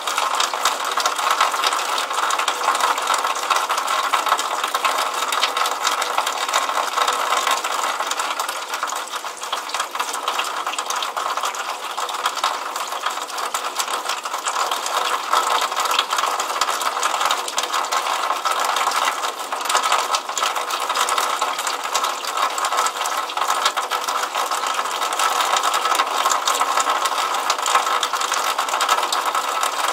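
Water running out of a drainpipe and splashing onto wet pavement: a steady, dense patter of small splashes.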